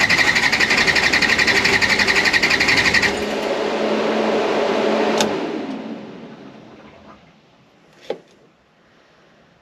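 Car engine running with a fast, even pulsing note on its first run after engine work. About three seconds in it is shut off, and the sound drops and dies away over the next few seconds. A couple of sharp clicks follow.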